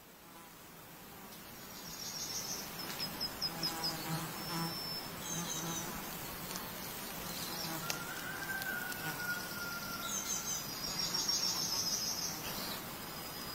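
Forest ambience fading in: insects chirping in rapid high trains of pulses, with a thin, slightly falling whistle about eight seconds in.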